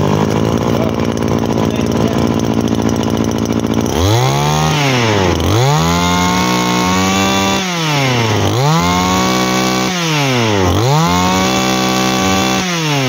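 Komatsu G2KC 22cc two-stroke brush cutter engine idling steadily, then revved four times. After a short first blip, each rev climbs to high speed, holds for about two seconds and falls back to idle. The engine is running well after being serviced.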